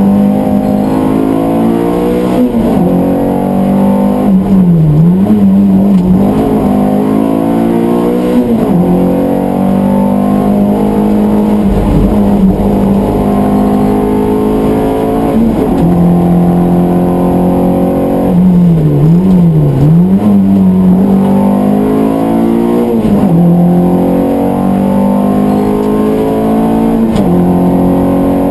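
Peugeot 205 Rallye Group A's four-cylinder engine heard from inside the cabin, running hard at high revs. The pitch holds steady for long stretches and several times drops sharply and climbs straight back as revs fall and rise through the turns.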